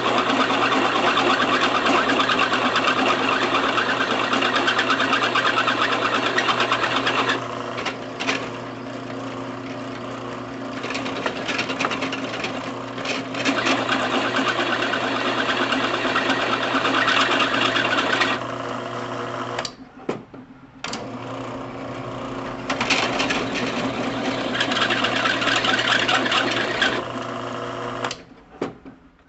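Drill press running with its bit cutting into a thick steel bar: a steady motor hum under a rough cutting noise that is loudest for the first several seconds, then eases and returns in spells. The sound drops out briefly twice, about two-thirds of the way through and near the end.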